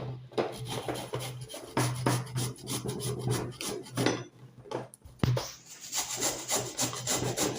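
A raw turnip being grated on a fine hand grater: quick, repeated scraping strokes, with a short break about five seconds in.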